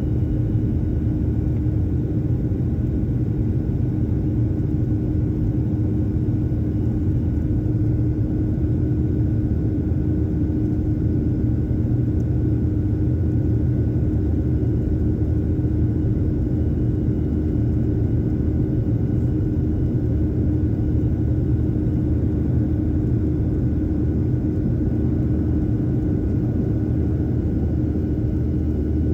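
Jet airliner's turbofan engines heard inside the passenger cabin in flight: a loud, steady drone with a constant hum running through it.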